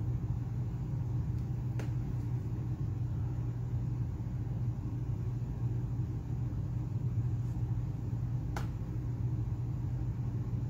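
A steady low hum, with two faint clicks about two seconds in and again about seven seconds later.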